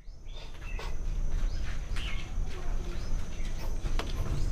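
Hands handling a cardboard box and peeling tape off it, giving light clicks and rustles, the sharpest near the end. Birds chirp in the background over a steady low rumble and a faint steady high whine.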